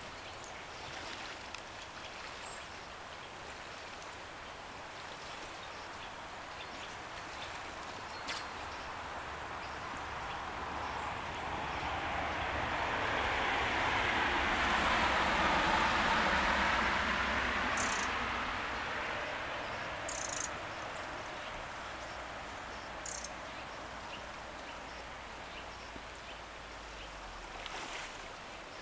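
Flowing river water under a passing vehicle's noise that slowly swells, peaks mid-way and fades away over about a dozen seconds.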